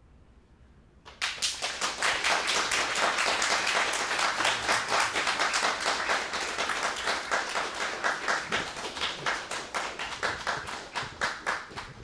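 A small audience applauding: after a short hush the clapping sets in suddenly about a second in, then thins to scattered separate claps near the end.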